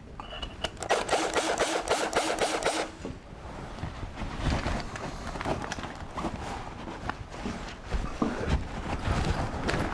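Cordless screwdriver running for about two seconds, about a second in, driving a self-tapping screw into a mortar joint to fix a fireplace cleanout door. Scraping and knocking follow as the door and tools are handled.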